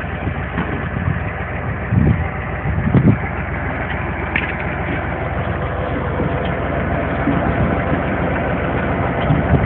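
Tractor engine running steadily as it pulls a potato planter through the field, with a couple of thumps about two and three seconds in.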